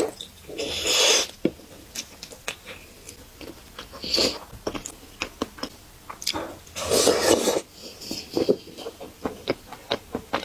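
Close-miked eating of a sauce-covered chicken thigh: wet biting and slurping, and sticky chewing with many small clicks and lip smacks. Three louder slurps come about a second in, around four seconds and around seven seconds.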